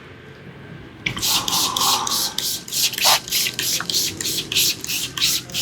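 Hands working rapidly over the scalp and hair in a vigorous head massage, making a quick, even run of brushing strokes, about four a second, that starts about a second in.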